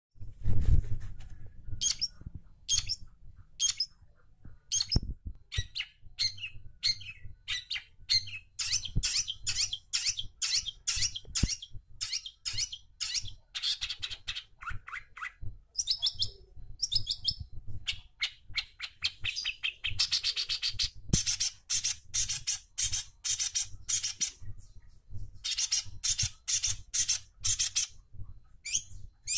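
Long-tailed shrike singing energetically in fast, chattering runs of short, sharp high notes, broken by brief pauses. There is a low thump right at the start.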